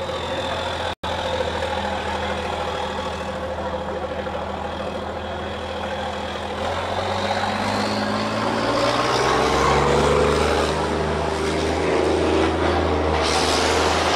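KAMAZ rally-raid truck's diesel engine running as the truck drives slowly past, then revving higher and louder as it pulls away, from about seven seconds in. There is a brief cut-out in the sound about a second in.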